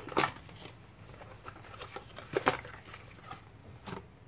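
Small cardboard box and its contents being handled and unpacked: rustling of paper and plastic bagging with several sharp knocks and scrapes, the loudest about two and a half seconds in.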